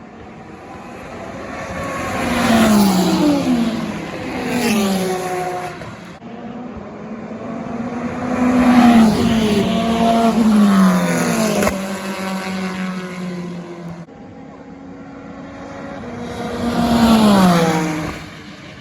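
Race cars passing at speed, each engine note swelling and dropping in pitch as it goes by: two cars early, a tight group of several in the middle, and a single car near the end.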